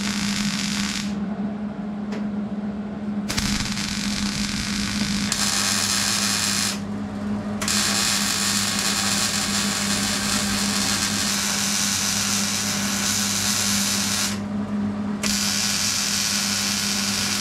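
MIG welding on the steel A-pillar of a car body shell: the arc crackles and sizzles in four runs of a few seconds each, the longest about seven seconds, with short pauses between them. A steady low hum runs underneath.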